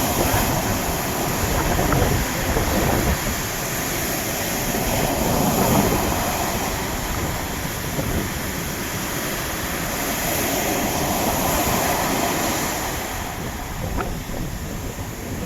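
Sea waves breaking on the shore: a loud, steady wash of surf that rises and falls every few seconds, with wind rumbling on the microphone.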